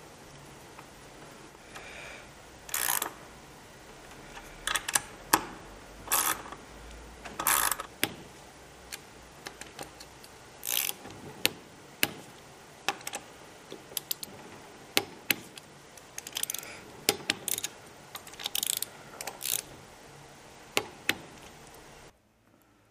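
Hand tools working metal hardware on a main rotor blade during assembly: irregular sharp clicks and short rasping strokes, like a ratchet being worked. The sound cuts off abruptly near the end.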